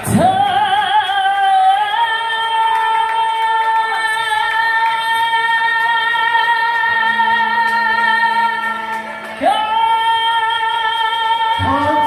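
A woman singing one very long held note, wavering at the start and then steady for about nine seconds. Near the end she breaks off briefly and takes up another long held note.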